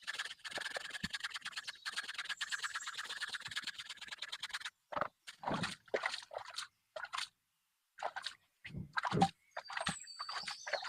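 A fast run of rasping scrapes, many strokes a second, for the first few seconds. Then separate scrapes and knocks with short gaps between them.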